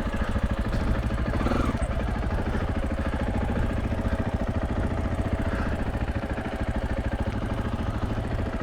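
KTM 500 EXC-F single-cylinder four-stroke dirt bike engine running at low, fairly steady revs, a close even pulsing, as the bike is ridden slowly through a tight sandy turn.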